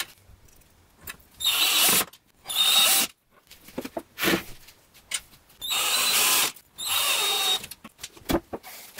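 Cordless drill-driver running in four short bursts, each under a second, as it drives screws through a metal drawer slide into the drawer's side panel.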